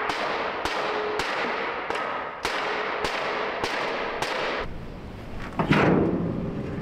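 A hammer striking a bent steel trailer door bracket to straighten it, about eight sharp metallic blows at an even pace of roughly one every 0.6 s. They stop about two thirds of the way in, and a louder sound follows near the end.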